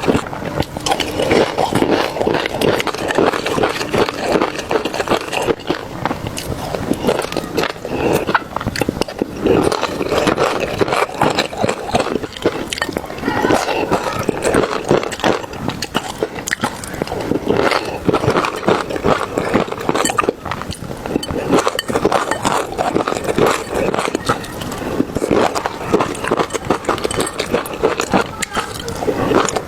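A person chewing and eating close to the microphone: dense, rapid wet clicks and smacks of the mouth.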